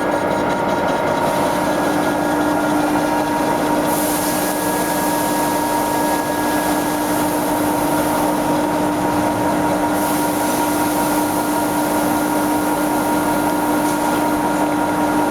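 A 16R30F3 CNC lathe running, a steady machine hum with a constant tone over an even whirr. The high hiss grows brighter about four seconds in and eases again some six seconds later.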